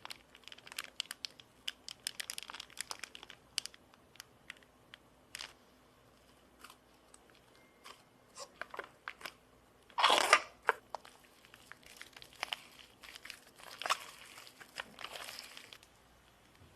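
Slime being squeezed and pressed, giving scattered sharp clicks and pops in quick clusters, with a louder burst about ten seconds in and another cluster near fourteen seconds.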